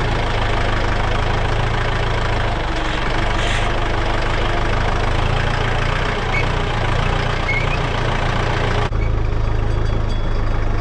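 Tractor engine running steadily under a broad hiss while the tractor drives along. About nine seconds in, the hiss cuts off abruptly and the engine sound carries on.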